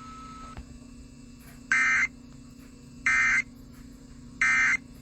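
Emergency Alert System end-of-message (EOM) data tones: three short bursts of digital squawk about a second and a half apart, signalling the end of the broadcast alert.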